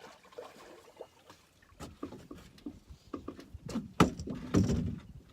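Irregular splashing and knocks of a hooked fish thrashing at the water near a boat, loudest about four seconds in, as the fish dives into the weeds.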